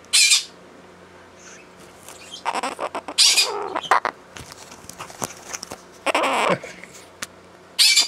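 Blue-crowned conure giving loud, harsh squawks in short bursts: one right at the start, a longer run about three seconds in, another about six seconds in, and one at the end. They are the screeches of an angry, agitated conure.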